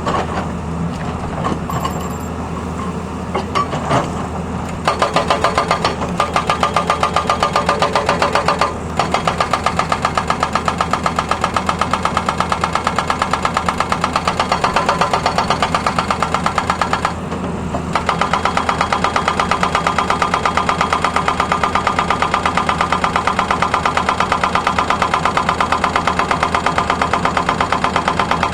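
Hydraulic breaker on a Tata Hitachi excavator hammering the road surface in a fast, even rattle of blows over the running engine. The hammering starts about five seconds in, stops briefly twice, once about a third of the way through and once a little past halfway, then carries on steadily.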